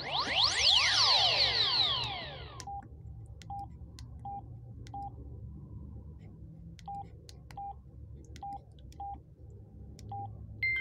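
Samsung SGH-S500 mobile phone: a melody of many sweeping, rising and falling electronic tones plays for about the first two and a half seconds and then stops. After that come about nine short single-pitch key beeps at uneven intervals, with faint button clicks, as the phone's keys are pressed.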